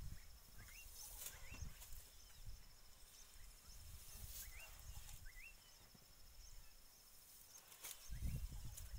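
African bull elephant feeding, scuffing the soil with its foot and pulling at grass with its trunk in quiet, uneven low thuds that grow stronger near the end. Over it an insect trills steadily and high, and a bird gives two pairs of short rising whistles.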